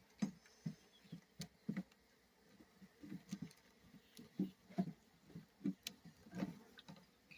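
Irregular soft knocks and taps with a few sharp clicks, from handling a package of honeybees.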